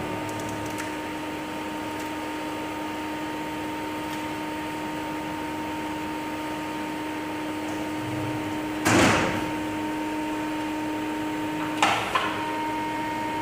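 CNC lathe humming steadily with two held tones. About nine seconds in comes a short loud rushing sound, and near the end two quick clunks, after which the pitch of the hum changes.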